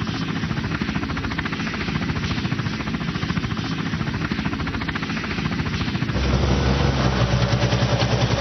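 Fast, even chopping of a helicopter's rotor for about six seconds, then a sudden switch to the steady low hum of a rally car's engine idling.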